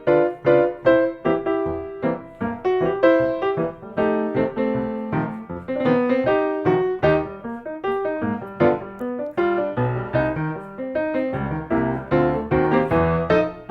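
Background music: a piano playing a quick melody with a steady beat.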